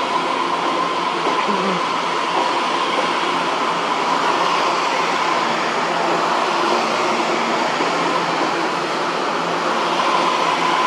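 Taroko Express TEMU1000 electric multiple unit rolling slowly past at the platform: a steady running rush with a constant high whine over it.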